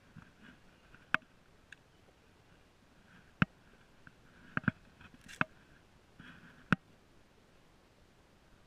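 Spinning rod and reel being handled during a retrieve: about half a dozen sharp clicks at irregular intervals, with short faint whirring between them.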